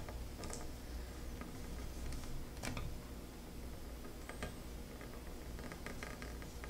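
Pen on paper: scattered light ticks and scratches of writing, faint, over a low steady room hum.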